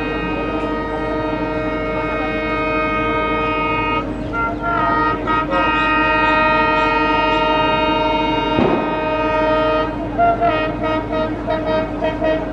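WDM-3A diesel locomotive sounding its multi-tone air horn in one long steady blast, its tones shifting briefly about four seconds in, then breaking into a run of short toots near the end. A single sharp click cuts across the horn about two-thirds of the way through.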